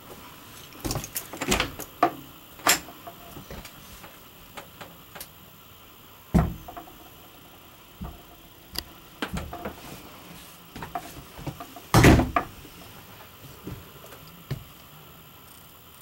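Interior doors opened and shut by hand, with knob latches clicking and the doors knocking against their frames. It is a string of clicks and knocks, with louder thuds about six seconds in and about twelve seconds in.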